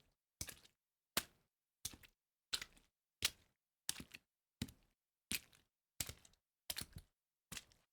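Foley sweetener for footsteps through water: a steady series of short watery steps, about three every two seconds, each a sharp hit that dies away quickly into silence.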